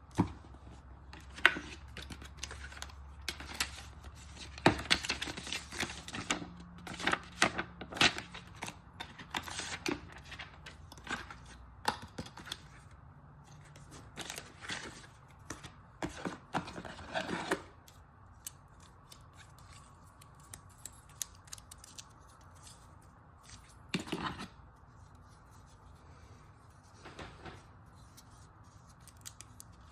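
Packaging of an iPad Pro box being opened and handled: a quick run of clicks, rustles and small knocks of cardboard and wrapping, which thins to a few scattered clicks about halfway through.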